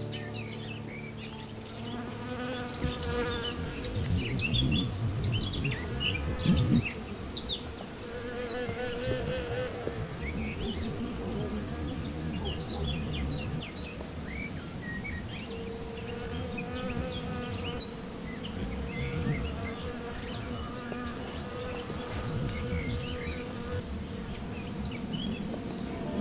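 Flying insects buzzing: a wavering drone that swells and fades several times as they come close and move off, with small birds chirping in the background.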